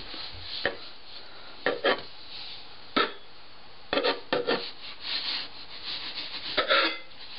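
A long kitchen knife sawing through risen bread dough on a floured wooden worktop: a string of short scraping strokes, the blade rubbing on the wood.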